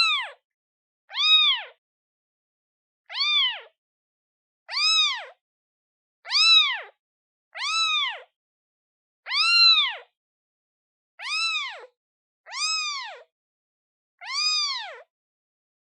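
A day-old newborn kitten meowing for its mother: about ten short, high calls, each rising then falling in pitch, repeated roughly every one and a half seconds with silence between.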